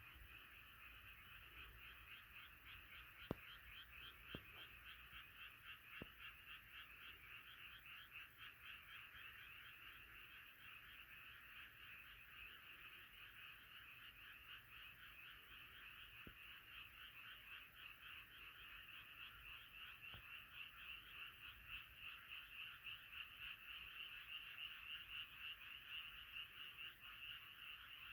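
A night chorus of many frogs calling together: a dense, continuous mass of rapid pulsing croaks, growing somewhat louder over the last several seconds.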